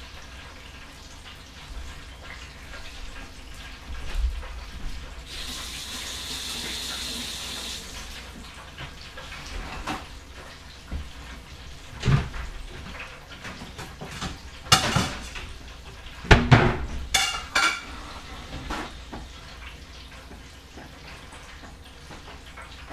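Kitchen work sounds: water runs from a tap for about two and a half seconds, then a string of knocks and clatters of dishes and utensils.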